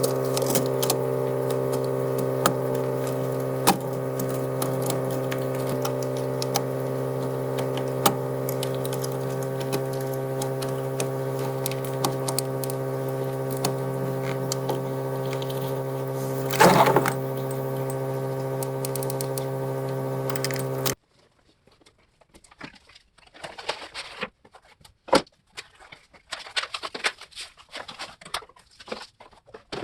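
A steady machine hum with scattered clicks, cutting off abruptly about two-thirds of the way through. After that, quiet irregular clicking, tapping and rustling of things being handled.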